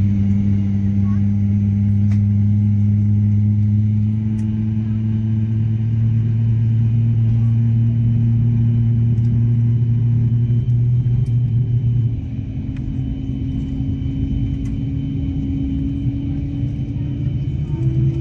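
Steady low drone inside an Airbus A350-900 cabin on the ground, a hum carrying a couple of steady low tones. About twelve seconds in it drops a little in level and the tones shift in pitch.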